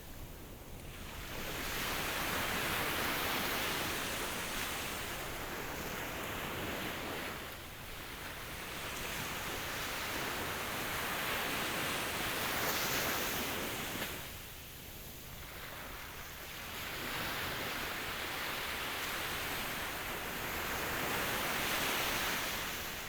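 Ocean waves breaking and washing up the shore, the rushing surf swelling and ebbing three times, about every six to seven seconds.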